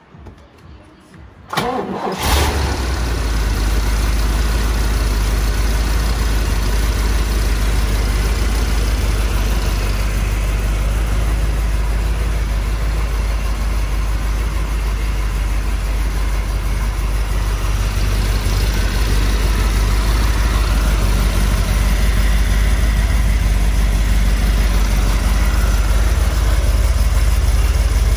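1969 Chevrolet Corvette's L68 427 big-block V8 with three two-barrel carburetors (Tri-Power) cranking briefly and firing up about two seconds in, then idling steadily.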